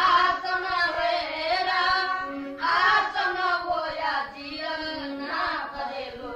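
A high voice singing a slow melody with long held notes, a new phrase starting strongly about two and a half seconds in.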